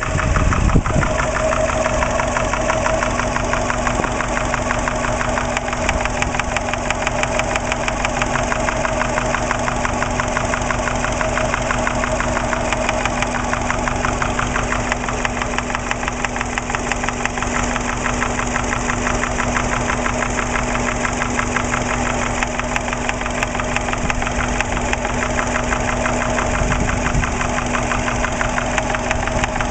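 Subaru Impreza's EJ20 flat-four boxer engine running steadily at idle with a fast, even knocking tap, the knock coming from the top of the passenger-side cylinder head above cylinder one. The owner cannot tell whether it is valve, piston or rod-bearing knock.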